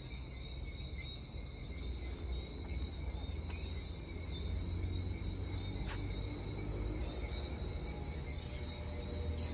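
Insects trilling steadily outdoors at two unbroken high pitches, over a constant low rumble.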